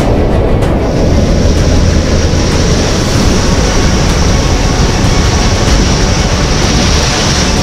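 Heavy surf breaking and washing over rocks, with wind rumbling on the microphone: a loud, steady wash of noise.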